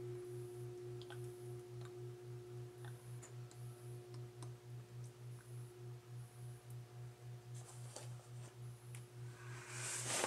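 Toaster oven running: a low electrical hum pulsing about four times a second, with a faint steady higher tone and scattered faint ticks. A short hiss comes near the end.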